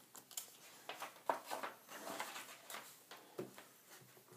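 Rustling and light clicks of paper and plastic-sleeved sheets being handled and shuffled, in short irregular bursts with a sharper tick about a second and a half in.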